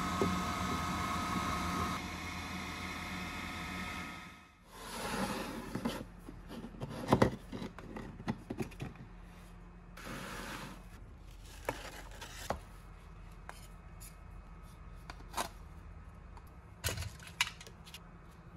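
A steady hum with several held whining tones fades out about four seconds in. Then hands handle a thin plywood sheet, a wooden ruler and a pencil on a cutting mat: scattered taps, knocks and brief scrapes as the wood is slid and set down.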